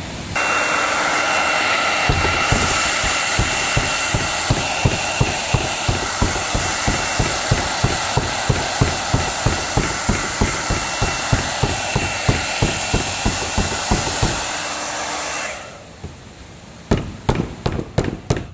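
Hot-air blower, such as a heat gun, running steadily and then switching off after about fifteen seconds, with regular thumps about three times a second under it. Near the end, sharp taps follow at a similar pace.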